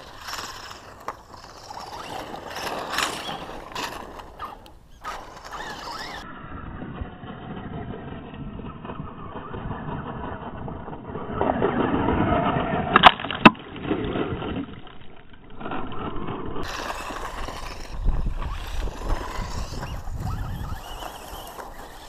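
Electric RC truck, a Traxxas 1/16 E-Revo VXL with a brushless motor, driving over loose dirt, loudest as it passes close about twelve seconds in. Two sharp knocks about half a second apart come as it goes by.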